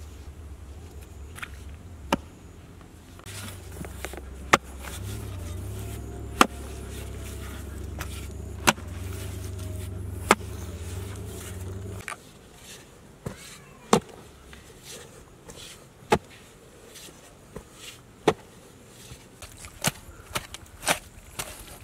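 The metal blade of a hand digging tool chopping into hard, dry earth: single sharp strikes about every two seconds, coming quicker near the end. A steady low rumble runs under the first half and cuts off about halfway through.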